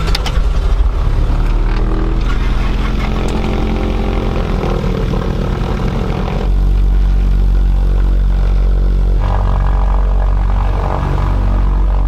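Propeller engines of a small twin-engine passenger plane running, heard from inside the cabin: a steady engine drone that gets louder about six and a half seconds in as power comes up.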